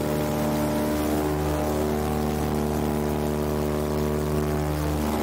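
The twin Pratt & Whitney R-1830 Twin Wasp radial engines of a Catalina PBY-5A flying boat run at a steady, even pitch during the takeoff roll, heard from inside the cockpit.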